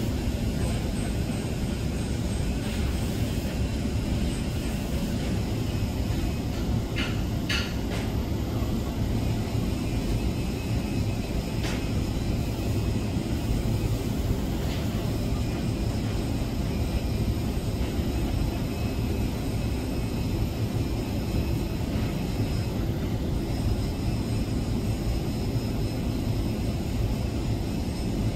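TIG welding arc burning steadily: a continuous, even hiss over a low rumble, with a few faint clicks about seven and twelve seconds in.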